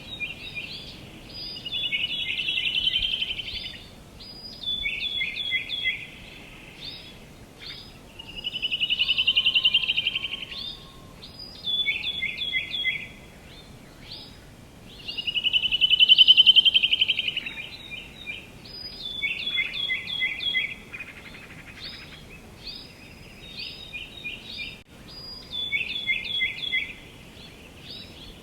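Songbirds singing: runs of quick, repeated high chirps, and three times a louder, rapid trill lasting about two seconds, the loudest about halfway through. A low, even hiss of outdoor background noise lies underneath.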